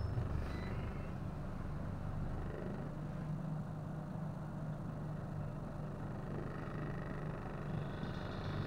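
A double-decker bus's diesel engine running steadily with a low hum, its pitch settling slightly higher about two and a half seconds in.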